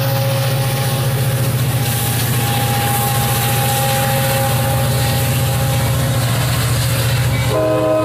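Amtrak California bilevel passenger train rolling past, its F59PHI diesel locomotive running with a steady low rumble. Near the end a train horn starts, a chord of several notes.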